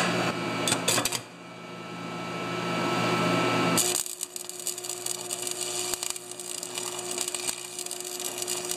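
A few clicks and knocks in the first second. Then, about four seconds in, a stick welder's arc strikes and runs steadily with a dense crackling sizzle and a steady hum, laying a tack weld on a hard steel pulley.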